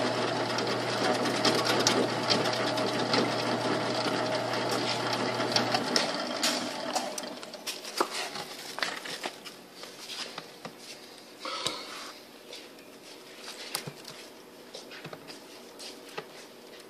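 Electric multi-function vegetable slicer running, its motor humming steadily as the spinning blade cuts a cucumber fed into the chute; the hum stops about six seconds in. After that, faint rustling and light clicks of cucumber slices being handled in a plastic crate.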